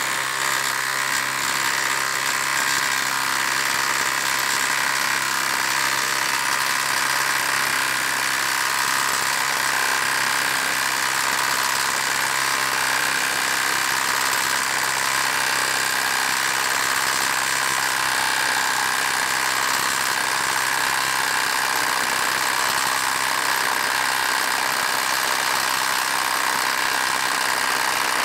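Ridgid Octane quarter-inch hex impact driver hammering steadily without pause, driving a 5/8-inch by 8-inch galvanized lag bolt into a log through a socket and hex adapter.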